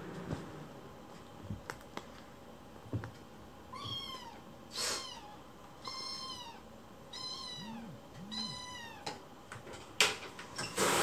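A young kitten meowing insistently, about five high, rising-and-falling meows in a row, an angry protest. A sudden loud burst of noise comes near the end.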